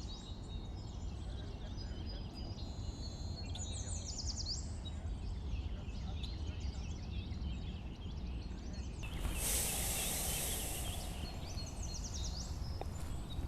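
Outdoor ambience of small wild birds chirping in quick repeated series, over a steady low rumble. A louder rushing noise swells for about two seconds around the middle.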